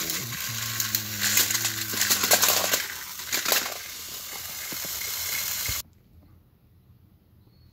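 Battery-powered Thomas & Friends toy engines running on plastic track: a steady electric motor hum that stops about three seconds in, over crackling and rustling clicks. The noise cuts off abruptly about six seconds in, leaving faint room tone.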